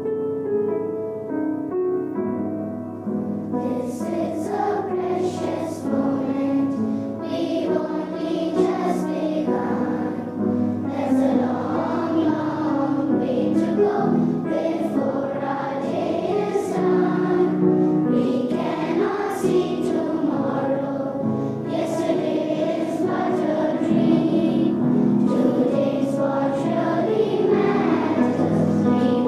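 A children's choir singing to upright piano accompaniment. The piano plays alone at first, and the voices come in about three seconds in.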